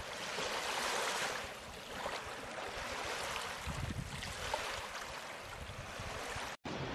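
Small waves washing up on a sandy beach: a soft hiss of surf that swells and eases, with a brief cut-out near the end.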